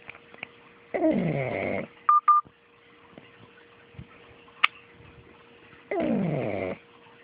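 Pug snoring in its sleep: two loud snoring breaths about five seconds apart, each sliding down in pitch. Just after the first snore come two short beeps.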